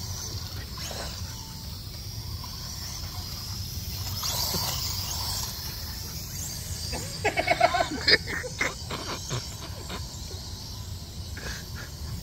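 A dog lets out a quick run of short barks and yelps about seven to nine seconds in, over a steady high whine from a toy drone's rotors.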